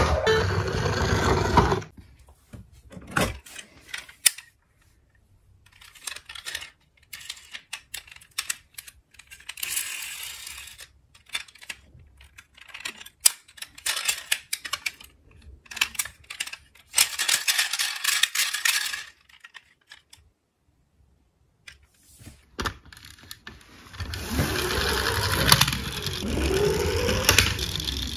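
A battery toy emergency vehicle's electronic siren wailing, cutting off about two seconds in. Then toy cars click and clatter against each other as they are handled in a cardboard box. About four seconds before the end a toy police car's electronic siren wails again with a rising and falling pitch.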